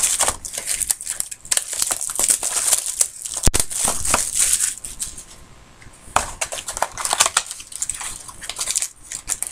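Crinkling and rustling of trading-card packaging handled by hand, with a single sharp click about three and a half seconds in.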